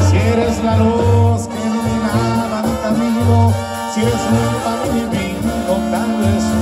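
Live banda sinaloense music through a concert sound system: brass over a pulsing tuba bass line, with singing.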